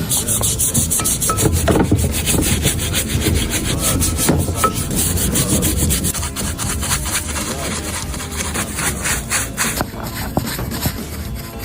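Rapid back-and-forth scrubbing strokes on steering rack parts as they are cleaned during servicing, stopping about ten seconds in.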